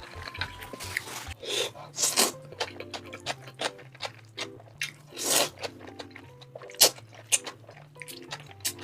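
Close-miked eating of crispy fried shrimp in chili sauce (kkanshao saeu): repeated crunchy bites and wet chewing, with several louder crunches, over soft background music.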